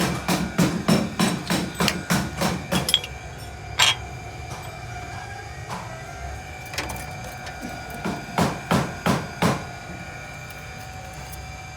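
A hammer striking metal: a fast, even run of blows, about four a second, that stops about three seconds in. Then a single blow, and a few scattered blows later on.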